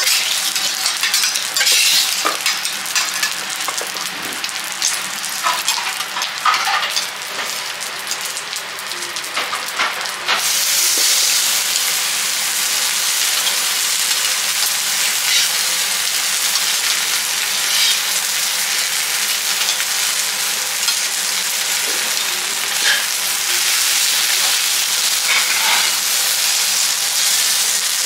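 Wagyu beef and oil sizzling on a steel teppanyaki griddle, with metal spatula and knife scraping and clicking on the plate during the first ten seconds. About ten seconds in, it changes abruptly to a steadier sizzle.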